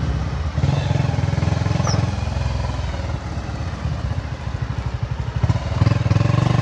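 Bajaj Avenger cruiser's single-cylinder engine and exhaust running under way, a steady low pulsing note that grows louder in the last second.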